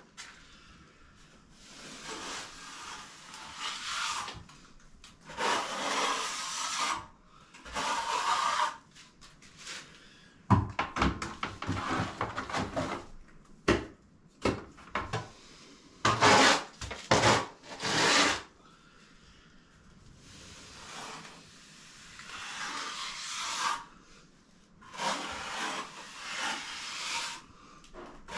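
Straight edge scraped across fresh cement render on a blocked-up doorway: a series of rough scraping strokes, each a second or two long with short pauses between, and a few short knocks about halfway through.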